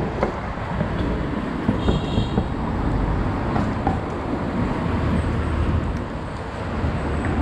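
City street traffic noise: a steady rumble of passing vehicles, with a brief high ringing tone about two seconds in.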